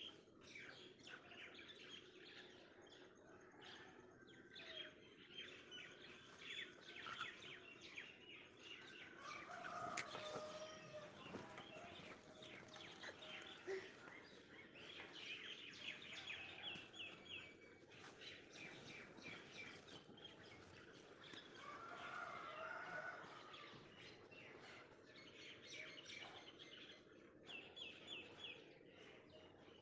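Faint outdoor birdsong: small birds chirping and twittering in quick repeated trills, with a couple of brief lower calls.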